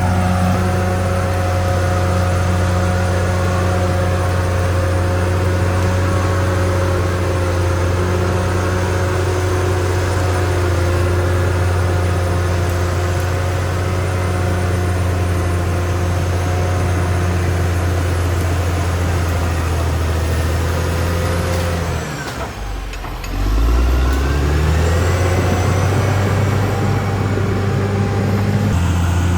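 CAT D6R XL bulldozer's diesel engine running steadily under work. About 22 seconds in, the engine note drops sharply and dips in level, then climbs back up over a couple of seconds.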